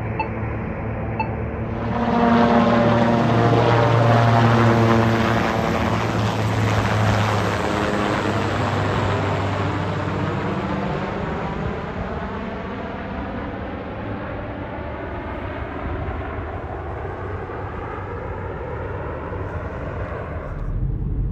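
Marine One, a Sikorsky Sea King-type presidential helicopter, flying overhead. Its rotor and turbine sound comes in suddenly about two seconds in and is loudest over the next few seconds, then drops in pitch and fades slowly as the helicopter flies away. The sound cuts off near the end.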